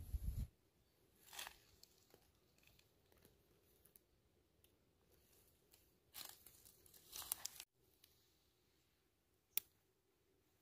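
Dry fallen leaves rustling and crackling in short spells, the longest a second and a half long and cut off abruptly. A low rumble at the very start and a single sharp click near the end.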